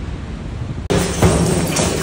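Wind and surf rumbling on the microphone, then a sudden cut about a second in to a louder sound: footsteps knocking on a tiled floor over a steady low hum.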